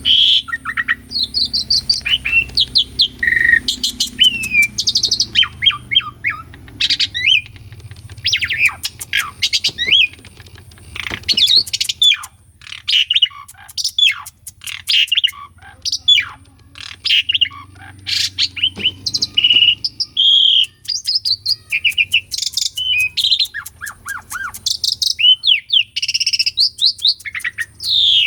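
Jalak suren (pied starling) in full song: a long, varied run of loud whistles, chirps and quick rising and falling glides, with only short breaks.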